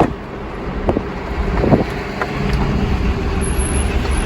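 Truck engine running with a steady low rumble, with a couple of short knocks about one and two seconds in.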